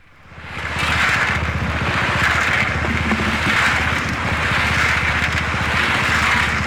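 Steady mechanical running noise: a dense hiss over a steady low hum with a rapid fine pulsing, fading up out of near silence over about the first second.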